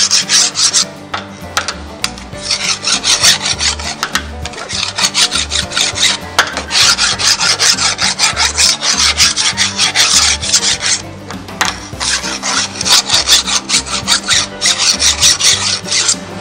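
Flat hand file scraping back and forth along the steel edge of a chainsaw guide bar clamped in a vise, dressing off the burr on the outside edge and levelling the rails. Quick strokes come in several runs, with a brief pause about two-thirds of the way through.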